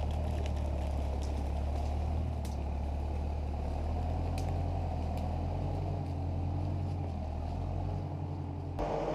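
International Harvester W-4 tractor's four-cylinder engine running steadily under load as it skids a log along the ground. The sound changes character just before the end.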